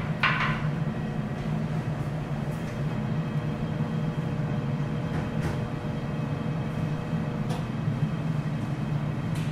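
Steady low hum of ventilation in a teppanyaki restaurant, with a short sharper sound right at the start and a few faint ticks, such as chopsticks touching porcelain.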